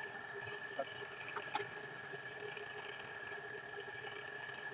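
Belt-driven wood lathe running steadily, its electric motor giving a steady whine, with a few light clicks in the first second and a half.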